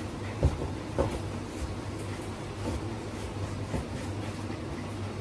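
Wooden rolling pin rolling out dough on a floured countertop, with two sharp knocks about half a second and a second in and a few softer ones, over a steady low hum.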